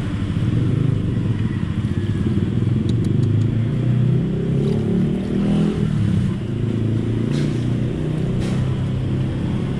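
A vehicle engine running with a steady low rumble, with a few faint clicks.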